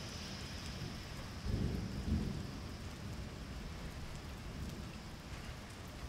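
Steady rain falling, with a low roll of thunder rising about a second and a half in and then fading away.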